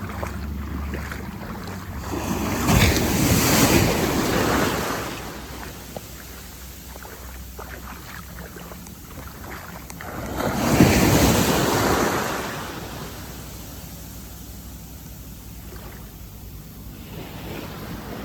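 Small Caribbean waves washing onto the beach, two surges of surf a few seconds apart, with wind buffeting the microphone.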